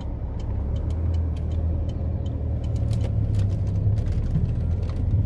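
A car driving at low speed, heard from inside the cabin: a steady low rumble of engine and road noise, with a few faint light ticks.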